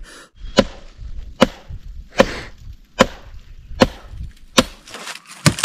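Firewood being chopped: about seven sharp blows at a steady pace, just under a second apart.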